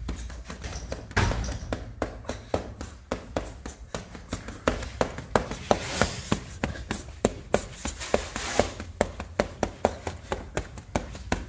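Boxing gloves landing repeatedly on a man's torso in a body-punching drill: a long run of sharp punches, uneven at first, then steady at about three to four a second.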